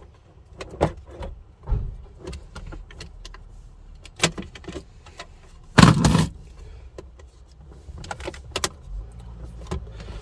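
Plastic clicks, knocks and rattling of a replacement car radio head unit and its wiring being pushed into the dashboard slot, with one loud thud about six seconds in as it is pressed home.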